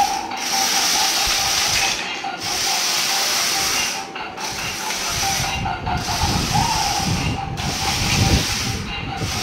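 Battery-powered RC stunt car driving on a tile floor: its electric gear motors whir with a hiss that cuts out briefly every couple of seconds. From about halfway through, a low rumble of the wheels on the tiles joins in.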